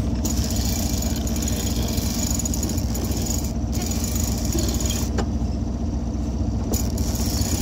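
Boat engine idling steadily with an even low drone.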